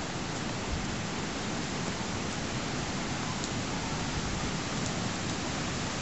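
Steady, even background hiss with a few faint ticks, without any distinct event.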